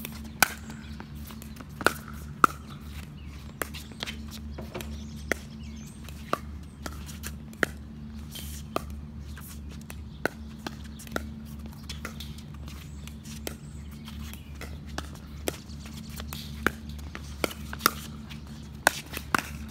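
Pickleball doubles rally: sharp pops of paddles striking the hollow plastic ball and the ball bouncing on the hard court, at irregular spacing of about one a second. A steady low hum runs underneath.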